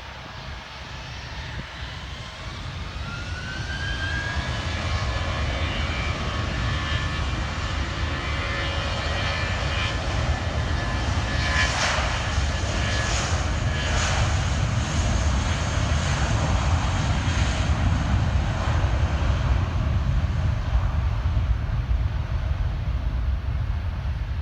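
Jet airliner's engines: a whine rising in pitch as the sound builds over the first few seconds, then a steady loud rumble.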